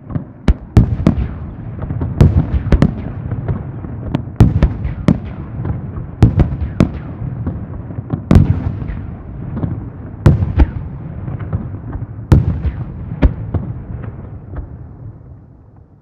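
A rapid barrage of fireworks: dozens of sharp bangs in quick succession over continuous rumbling echo, starting suddenly and dying away near the end.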